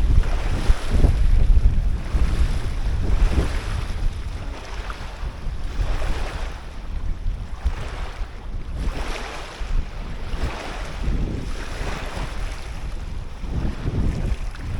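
Strong wind buffeting the microphone as a heavy low rumble, over waves washing in with a hiss that rises and falls every second or two.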